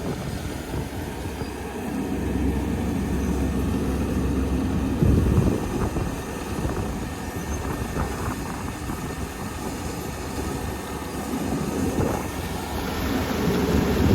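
Kubota ER470 combine harvester running in the field: its diesel engine and threshing machinery give a steady, heavy mechanical rumble that swells and eases as it works, with a few faint clicks.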